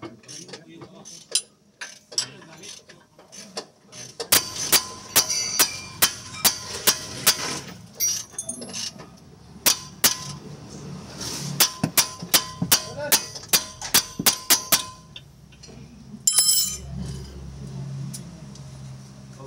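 Metal striking metal in quick runs of ringing blows, about three a second, like a hammer on steel suspension parts. A short hissing burst follows near the end.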